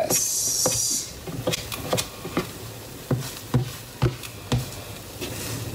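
A metal utensil knocking and scraping against a steel frying pan while an omelet is pressed and shaped: a string of sharp taps, about two a second.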